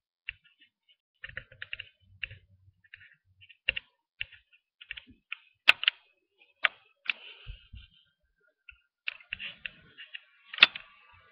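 Computer keyboard keys clicking in irregular clusters, as in typing, with two sharper, louder clicks, one about halfway through and one near the end.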